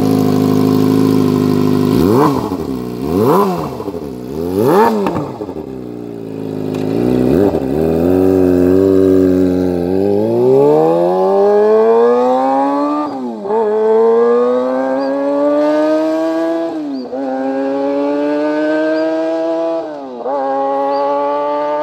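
Kawasaki ZX-25R's high-revving inline-four engine through an aftermarket Yakuza exhaust. It idles, gives three sharp throttle blips about a second apart, then accelerates away through the gears, its pitch climbing in each gear and dipping at each of three upshifts.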